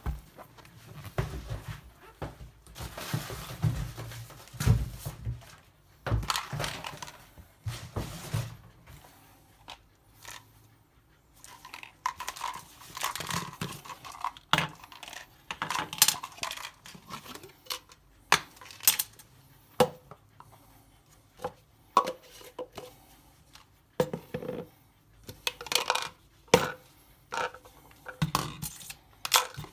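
Hands handling plastic containers, a whey protein tub and a plastic shaker bottle with a mixer grid being taken apart. Irregular clicks, taps and knocks of plastic parts, with stretches of rustling and scraping in between.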